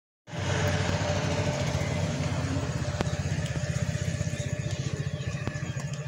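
A motor vehicle's engine running close by with a fast, even low pulse over a steady hiss, starting abruptly just after the beginning.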